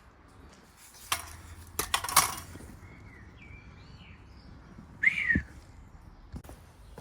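Metal clutch parts and tools clanking as they are handled, with a single clank about a second in and a quick run of clanks about two seconds in. Birds chirp faintly in the background, one louder chirp about five seconds in.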